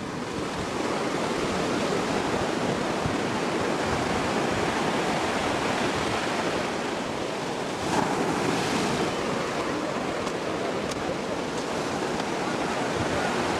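Ocean surf breaking and washing up a sandy beach: a steady rush of noise, swelling briefly about eight seconds in.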